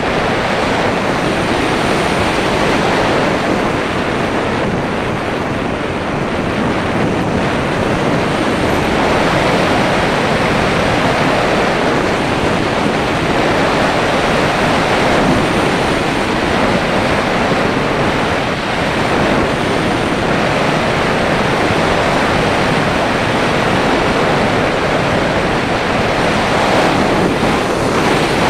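Steady rush of airflow over the microphone of a HawKeye Firefly Q6 action camera riding on the nose of a motorless slope-soaring glider in flight, rising and falling slightly with airspeed.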